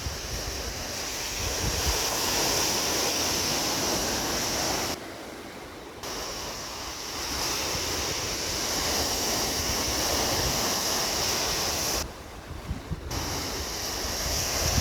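Sea surf: a steady rush of waves that swells and eases, dropping away abruptly twice for about a second. Low gusts of wind buffet the microphone near the start and end.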